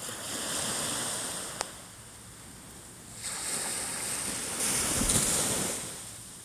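Small waves breaking and washing up the sand, the surf hiss swelling and fading twice. A brief click about one and a half seconds in.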